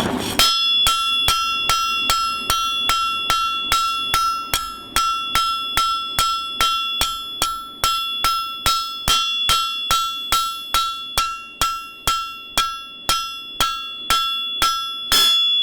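Blacksmith's hammer striking hot steel on an anvil in a steady rhythm, about two to three blows a second, each blow ringing with the anvil's clear tone. The ends of short bars are being forged flat and widened.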